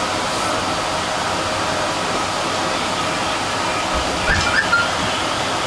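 Steady rushing noise of a CSR Qingdao Sifang SFM04 subway train running through a tunnel, heard from inside the car. A few short knocks and two brief chirps come about four seconds in.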